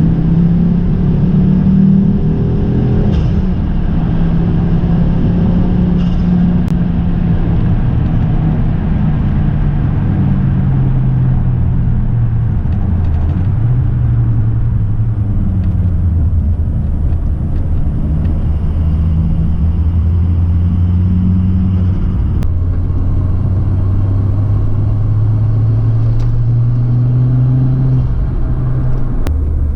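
Ford Focus ST's turbocharged 2.5-litre five-cylinder engine running under way at moderate, fairly even revs. The engine note eases down in pitch over the first half, then holds steady and climbs slowly near the end.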